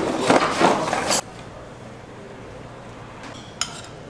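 Busy restaurant-kitchen clatter of dishes and utensils for about a second, cutting off abruptly to a low steady hum with a single light clink near the end.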